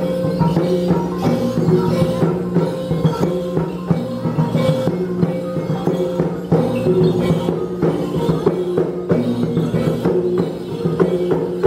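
Traditional Dayak gong-and-drum music: steady ringing gong tones over a fast, continuous beat of drum and percussion strokes.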